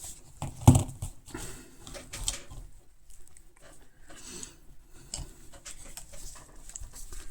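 Hand tools being handled and set down on a table: scattered light clicks and knocks, the loudest about two thirds of a second in, with a brief rustle midway.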